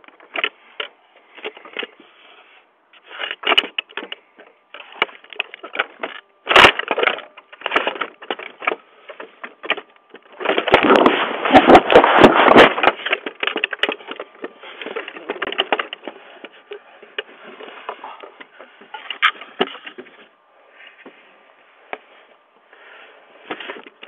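Irregular banging, rattling and scraping as a man yanks and shakes a front door, heard through a doorbell camera's thin microphone. The loudest, densest clatter comes about halfway through and lasts a few seconds, while the camera's view is blocked.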